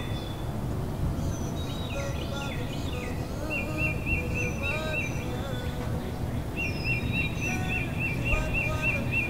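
Birds chirping over a steady low background rumble. One bird twice repeats a rapid run of identical high notes, about five a second, while others give short falling chirps.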